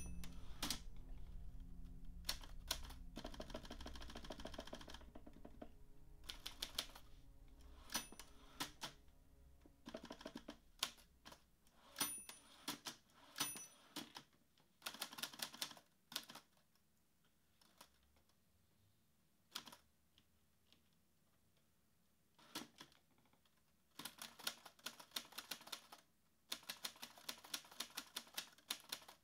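Faint typing: quick runs of key clacks broken by pauses of a second or more, over a low hum that fades away during the first few seconds.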